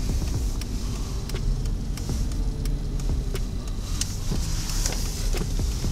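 Car driving, heard from inside the cabin: a steady engine and road rumble, with a few faint ticks.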